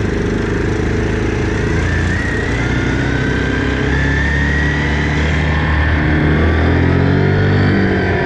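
Yamaha Kodiak 400 ATV's engine running as it is ridden, revs climbing over the second half, with a thin high whine over it.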